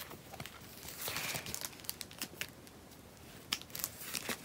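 Clear plastic binder pockets crinkling and clicking as a page is turned, with a soft rustle about a second in and scattered light ticks.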